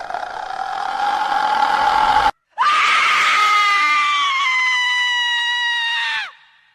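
Two long horror-style screams. The first rises in pitch and cuts off abruptly a little over two seconds in. After a brief gap, the second starts high and slowly sinks in pitch for nearly four seconds before breaking off.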